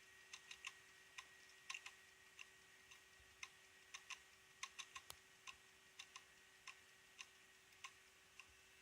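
Failing hard disk drive clicking: sharp, irregularly spaced clicks, about two to three a second, over a faint steady hum. The clicking goes with mounting hardware ECC errors and fast-rising reallocated sectors, the sign of a dying drive.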